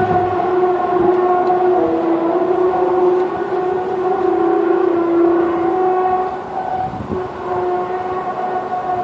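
A long, horn-like droning tone with several overtones, its pitch wavering slightly and its level dropping a little about two thirds of the way through. It is one of the unexplained 'strange sounds in the sky' recordings.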